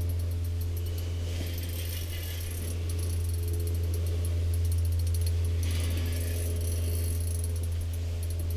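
Spinning reel on an ice-fishing rod clicking and rattling in bursts while reeling against a big fish on the line, over a steady low hum.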